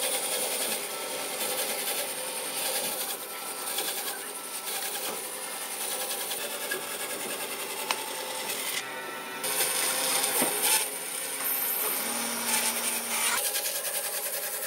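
Vertical bandsaw ripping lengthwise through a log, the blade cutting steadily through the wood with a continuous hiss, broken briefly about nine seconds in.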